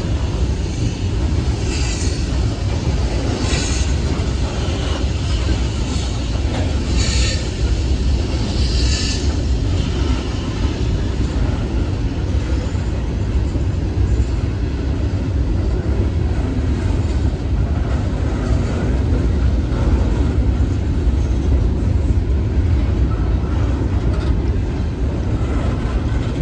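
Train rolling past, a steady heavy rumble of wheels on the rails with a few short, sharp clatters in the first ten seconds or so.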